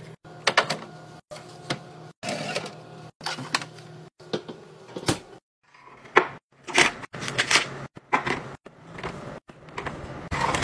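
Snack pouches and packs being set into clear plastic organizer bins: a run of sharp plastic taps and clicks with rustling of packaging between them, broken by a few brief silent gaps.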